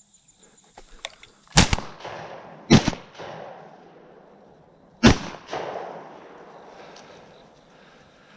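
Three shotgun shots fired at doves: two about a second apart, then a third about two and a half seconds later. Each shot is followed by a rolling echo.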